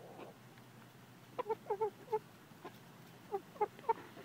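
Hens clucking in two short runs of brief calls, the first about a second and a half in and the second near the end.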